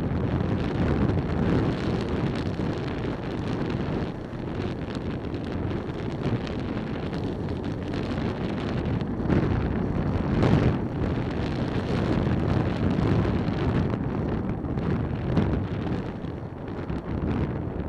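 Wind buffeting the microphone of a helmet camera on a moving motorcycle, with the bike's running and road noise beneath it. Steady and gusty, swelling loudest about two-thirds of the way through.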